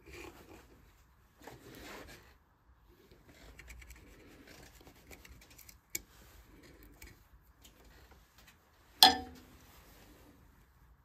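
Carving gouges scraping and cutting into a wooden vase in short, intermittent strokes. There is a sharp click about six seconds in and a single loud knock about nine seconds in.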